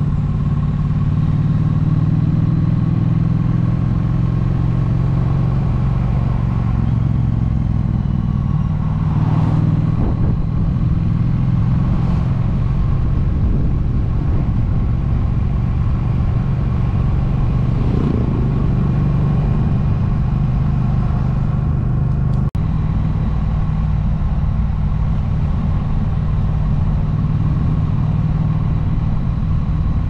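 Triumph motorcycle engine running steadily while riding, with a few short swells of rushing noise on top. The sound briefly drops out about two-thirds of the way in.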